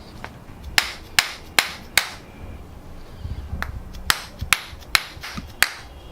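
A quick series of sharp taps during chiropractic treatment. There are four taps about 0.4 s apart, then after a short pause a second run of about six.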